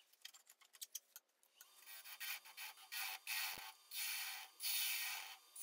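Bowl gouge cutting the inside of a spalted ash bowl spinning on a wood lathe: a scatter of light clicks, then from about three seconds in, repeated hissing cuts each about a second long with short pauses between passes.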